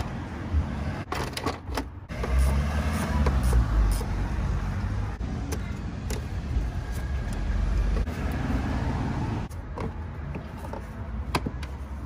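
A road vehicle drives past, a low rumble for several seconds in the middle. Sharp plastic clicks and knocks from engine-bay parts being handled come near the start and again near the end.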